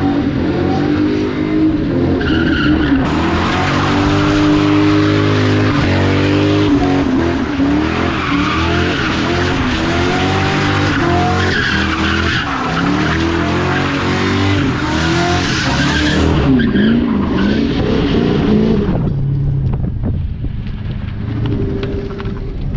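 A car's engine revving hard, its pitch swinging up and down, while the tyres squeal and spin in a burnout and drift. About three quarters of the way through the tyre noise stops and the engine drops back to a lower, steadier running.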